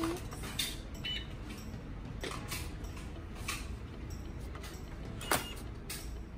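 Scattered light clicks and knocks of plastic toy groceries and a toy checkout being handled, at irregular intervals over a faint low hum.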